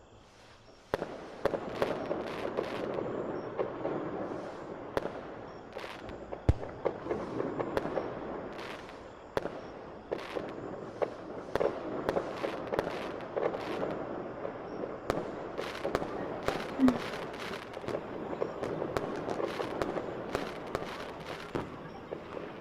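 Fireworks crackling and popping in a rapid, dense string of sharp cracks, starting abruptly about a second in.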